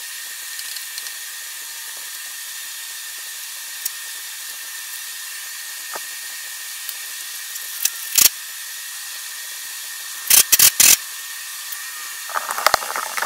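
Workshop handling noises over a steady hiss: scattered sharp clicks, three quick loud clanks about ten seconds in, and a run of rattling near the end.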